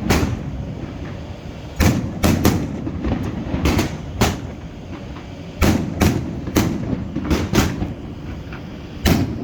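Aerial fireworks shells bursting: about a dozen sharp bangs in irregular groups, with a low rumble between them.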